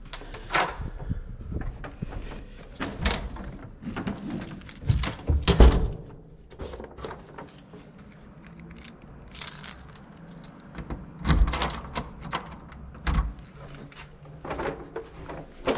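Keys jangling among irregular clicks and knocks of things being handled, with a few louder knocks about five and a half, eleven and thirteen seconds in.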